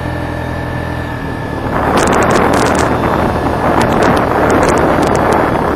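An engine running steadily; from about a second and a half in, loud wind buffeting on the microphone covers it, with scattered sharp clicks.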